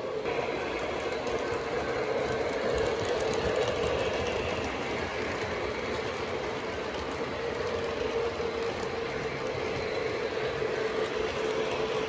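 O gauge model trains running on three-rail track: a continuous rolling rumble of wheels on the rails with a steady hum.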